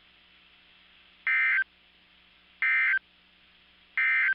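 NOAA Weather Radio SAME end-of-message code: three short bursts of screechy digital data tones, about a second and a third apart, over faint radio hiss. They signal the end of the broadcast message.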